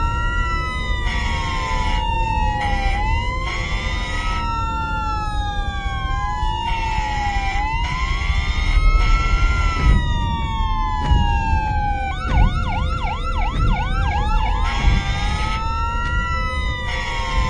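Ambulance siren wailing, its pitch rising and falling slowly over a low rumble. About two-thirds of the way through it switches to a fast yelp for a couple of seconds, then returns to the slow wail.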